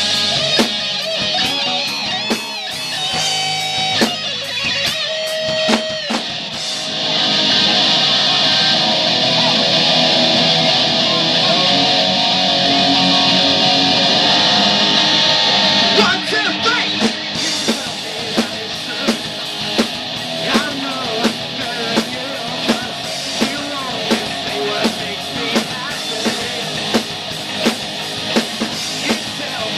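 Live rock band playing: distorted electric guitar lines over bass guitar and a drum kit. The middle stretch is a dense, steady loud passage, after which the drums settle into a regular beat of about two hits a second.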